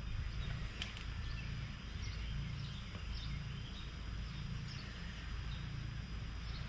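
Outdoor background: a steady low rumble with faint, scattered bird chirps and a single click about a second in.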